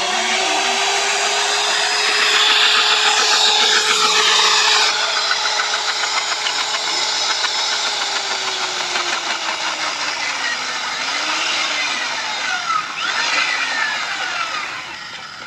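Magnetic drill press running with its cutter boring into a thick steel plate: a steady motor whine over grinding cutting chatter. The whine drops in pitch and wavers about ten seconds in.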